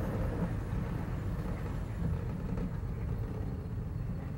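Steel roller coaster train rolling along its tubular track, a steady low rumble heard from the front seat.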